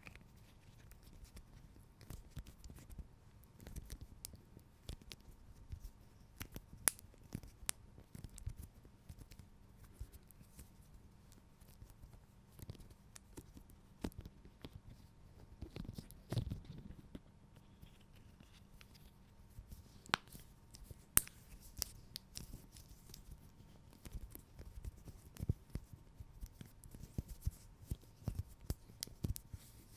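Silly Putty being squeezed, stretched and pulled apart by hand, with soft sticky crackling and many small sharp pops, a few of them louder snaps.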